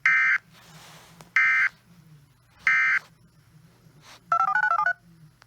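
Three short EAS/SAME digital data bursts from a weather radio alert relay, about 1.3 seconds apart: the end-of-message code that closes the alert. About four seconds in comes a half-second run of quick stepping electronic beeps.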